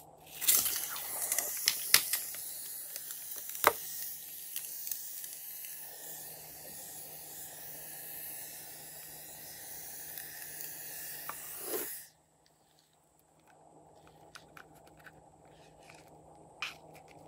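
Foam hissing out of a balloon cut open at the tip: a long steady hiss with a few sharp pops, stopping abruptly after about eleven seconds.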